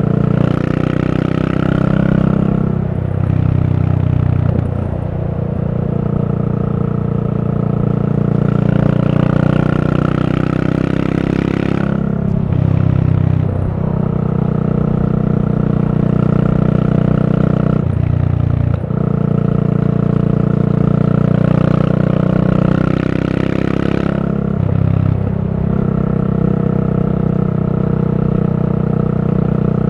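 Yamaha SR400's air-cooled single-cylinder four-stroke engine running under way, heard through a Goods tapered-cone slip-on muffler. Its note dips briefly four times, the pitch falling and climbing again each time.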